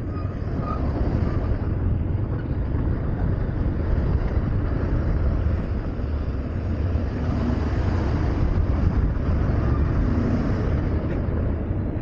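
Honda Hornet 160R single-cylinder motorcycle being ridden over a rough, stony road, with its engine and the ride making a steady low rumble and no pauses.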